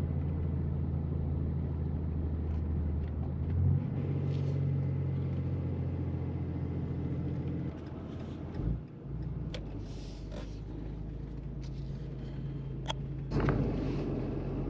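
Diesel pickup truck driving, its engine running with a steady low drone that shifts in pitch and level a few times, as with gear changes or changes of throttle.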